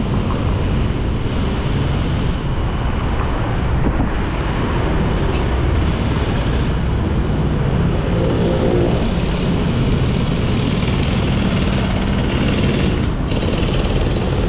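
Steady city traffic noise mixed with heavy low wind rumble on the microphone of a moving rider, with a brief engine tone from a passing vehicle about eight seconds in.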